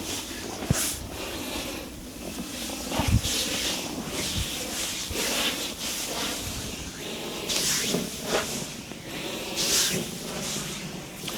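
Hands rubbing and sliding over skin during a body massage, making hissing swishes about every two seconds, with a few soft thumps.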